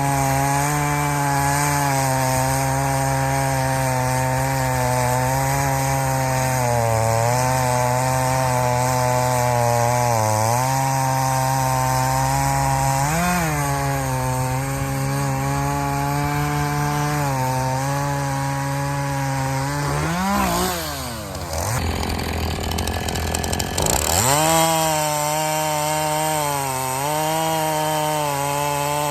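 Two-stroke chainsaw running at full throttle through wood, its pitch wavering as the cut loads and unloads it. About two-thirds of the way through it drops off throttle for a few seconds, then revs sharply back up and carries on cutting.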